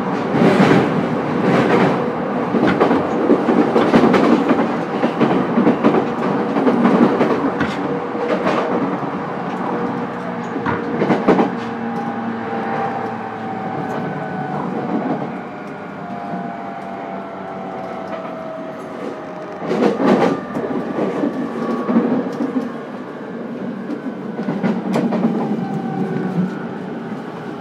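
Running noise of a JR East E231 series commuter train heard from inside a motor car: wheels rumbling and clattering over rail joints. From about halfway the traction motors' whine falls steadily in pitch as the train slows.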